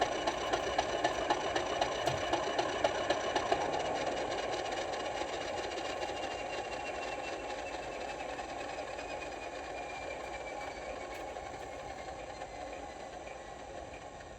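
Sound decoder in a model Class 50 diesel locomotive playing the engine shutdown: the engine's regular knocking beat smooths out after a few seconds, and the engine runs down with a slowly falling whine, fading steadily.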